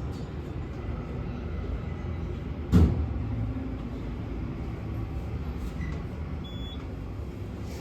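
Glass passenger elevator cab in motion: a steady low mechanical hum, with one sharp knock about three seconds in.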